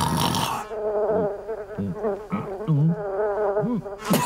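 Cartoon housefly buzzing with a wavering whine, with a few short low swooping sounds under it. A loud rasping breath opens it, and a sharp crack comes near the end.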